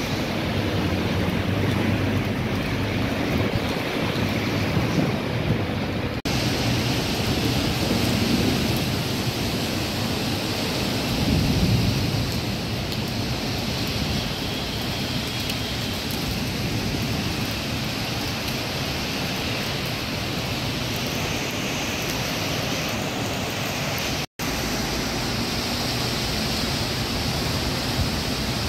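Vehicles driving through a flooded street, their tyres ploughing through standing water and throwing up spray, over a steady rushing hiss of rain and water.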